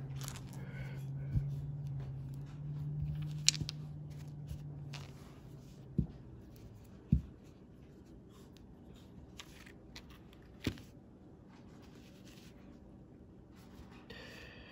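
Quiet handling of rock specimens on a terry towel: soft rustling with a few short, sharp taps and knocks as stones are moved and set down. A low steady hum stops about five seconds in.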